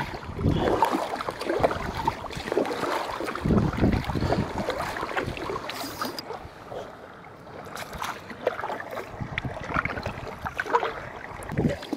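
A kayak being paddled on choppy water: irregular paddle splashes and water slapping the hull, with wind buffeting the microphone.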